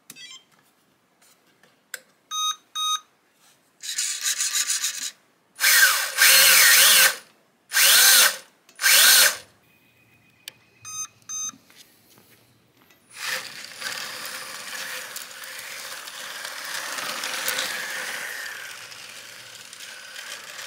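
Short electronic beeps from the RC radio and speed controller, then several brief throttle bursts of the kart's 540 brushed electric motor spinning up. After more beeps, the motor settles into a steady, quieter run as the kart drives on the pavement.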